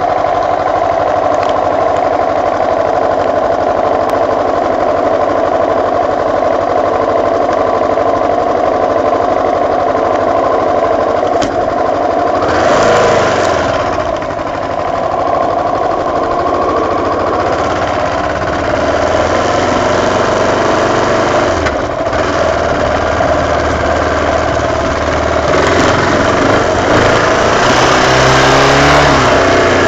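Honda XR600's single-cylinder four-stroke engine idling steadily. About twelve seconds in it revs up as the bike pulls away, then runs under way, rising in pitch as it accelerates near the end.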